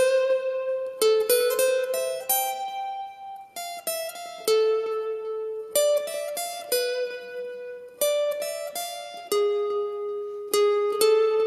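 Steel-string Crafter acoustic guitar played as a single-note melody high on the neck, one plucked note at a time, with a few notes slid into. The phrase is in A minor and uses the harmonic minor.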